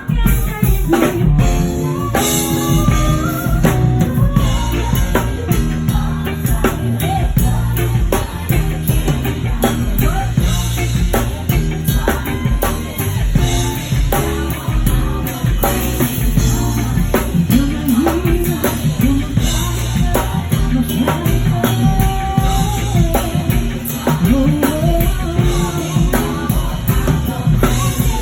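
Amplified pop-rock music with a drum kit keeping a steady beat and a strong bass, probably a backing track playing through the PA during a sound check, with a voice singing over it at times.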